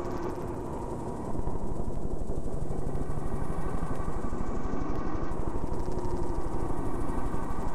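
Dense, droning noise soundtrack with a low rumble, which jumps louder a little over a second in and then pulses at a fast, even rate, with slow wavering tones drifting underneath.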